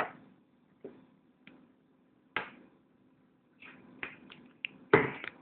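Scattered light knocks and taps of kitchen utensils against a bowl, a few single strikes and then a quick, louder cluster of knocks near the end.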